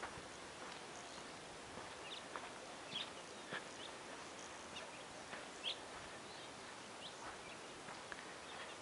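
Faint outdoor ambience: scattered short chirps, likely birds, and irregular soft steps on a dirt path over a steady hiss.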